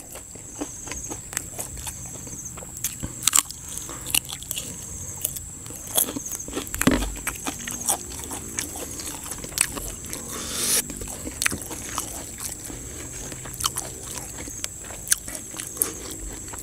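Close-up eating sounds: a person chewing and crunching a mouthful of koi khom salad and raw vegetables, with many sharp mouth clicks scattered throughout.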